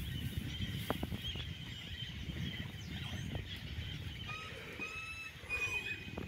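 Zebu cattle licking and chewing salt at close range: soft low crunching and rustling with a few clicks. A bird calls several short whistled notes over it near the end.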